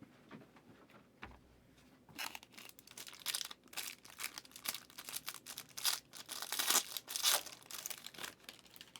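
Trading card pack wrapper being torn open and crinkled: a quick run of ripping and crackling that starts about two seconds in and goes on almost to the end.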